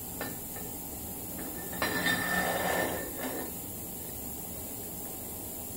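Metal-on-metal handling of an ATV's rear axle parts as the brake disc is fitted onto the end of the splined axle shaft. A few light clicks, then a scrape of about a second and a half with a faint metallic ring, about two seconds in.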